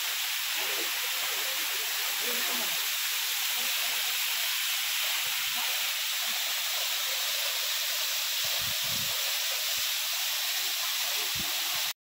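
Waterfall running steadily: a constant rushing hiss of falling water.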